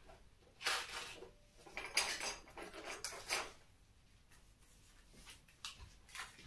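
Small hard parts being handled off-camera, clinking and rattling together in three or four short bursts in the first half, then only faint handling.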